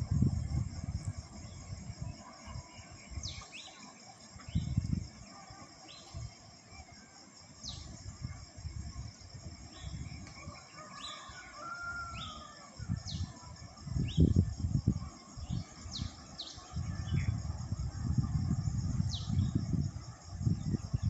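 Village hillside ambience: a steady high insect drone, small birds giving short falling chirps every second or two, and a rooster crowing once around the middle. Wind gusts rumble on the microphone, loudest in the second half.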